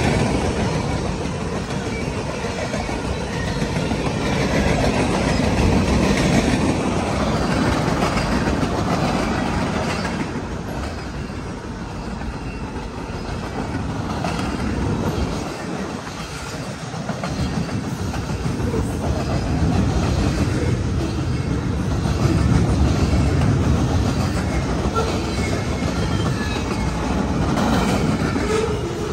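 Mixed freight train rolling past close by: steel wheels clattering and rumbling over the rail joints as the cars go by. The rumble dips for a few seconds about halfway through and then builds again.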